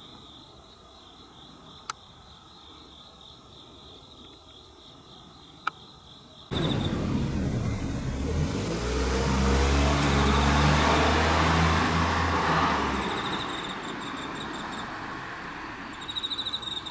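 A car passes on the road. Its engine hum and tyre noise come in suddenly about six seconds in, peak, then fade away. Before it, crickets chirr steadily with two sharp clicks, and the chirring comes back as the car fades.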